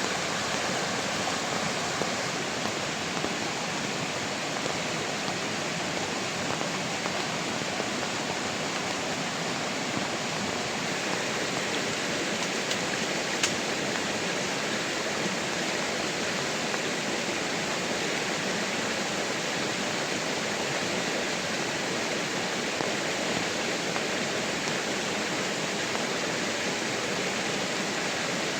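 Steady rushing of water, even and unbroken, with one sharp tick about halfway through.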